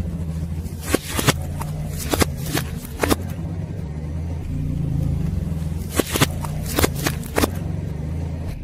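Car engine idling with a steady low hum. Sharp pops and crackles come in two clusters, one about a second in and one around six to seven seconds in.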